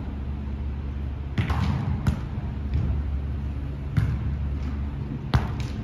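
A beach volleyball rally: the ball is struck by players' hands and arms in several sharp slaps a second or two apart, over a steady low hum.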